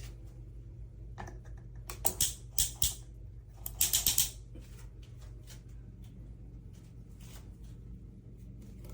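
Sharp hard-plastic clicks from a shower head being handled: three spaced clicks about two seconds in, then a quick cluster of four.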